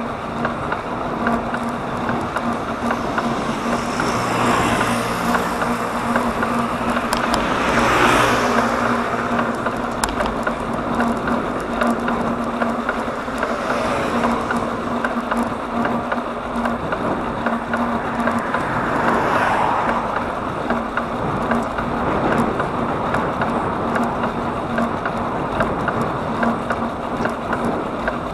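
Road traffic: motor vehicles passing one after another, with about four swells in level, over steady road noise and a low steady hum.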